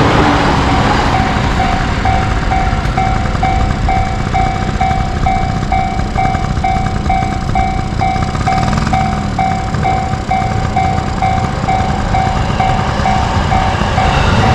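Japanese railroad crossing alarm ringing "kan-kan" at one steady pitch, about two strokes a second, over a steady low rumble; the ringing stops just before the end.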